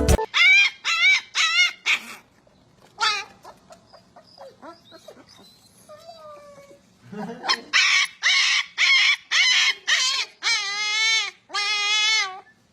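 A dog whining and yipping: a few short cries, softer whimpers, then a run of cries that grow longer and waver in pitch near the end.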